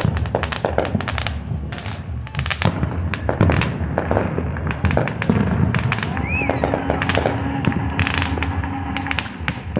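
Fireworks going off one after another: many sharp bangs and crackles, with a brief whistle about six seconds in. A steady low hum runs under the second half.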